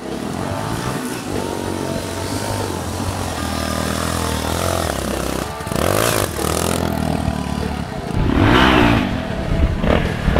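Off-road dirt bike engines running and revving. The pitch rises and falls sharply about eight seconds in, with further revs near the end.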